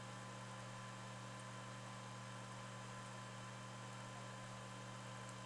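Steady low electrical hum with a thin steady tone above it and a faint hiss; no distinct sound event.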